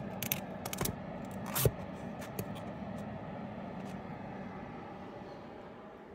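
Comic books being handled and shuffled in a storage box, with a few sharp clicks and scrapes in the first couple of seconds.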